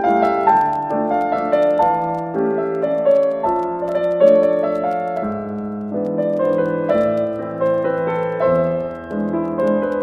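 Background piano music: a melody of struck notes over sustained lower notes.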